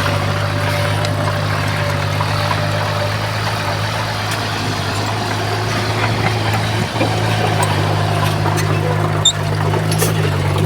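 Heavy earthmoving machine's diesel engine running steadily with a low drone, with a couple of faint knocks later on.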